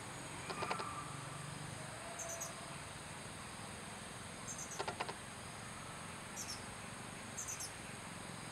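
Steady high-pitched insect drone, with short high chirps every second or two and two brief rattling bursts of ticks, about half a second in and near five seconds.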